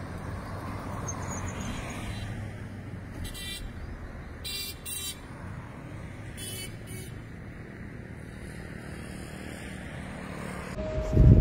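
Road traffic: a steady low rumble of passing vehicles, with a few short high-pitched toots or chirps in the middle. A louder rumbling noise with a steady tone cuts in suddenly near the end.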